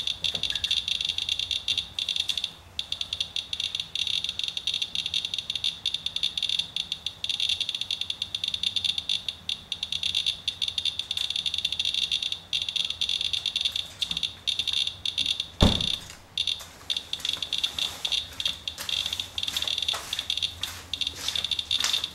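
Radalert Inspector Geiger counter's audio counting fast, a dense irregular stream of high chirps and clicks with brief gaps, measuring a wiped rainwater sample that reads around 0.36 mR/hr, which the owner calls still high. A single knock about sixteen seconds in.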